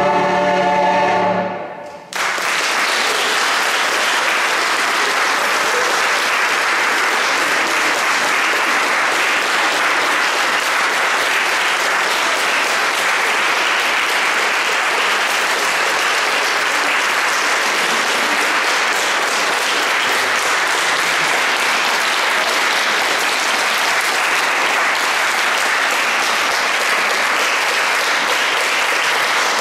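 A held final chord of the music cuts off about a second and a half in. Audience applause then starts about two seconds in and carries on steadily.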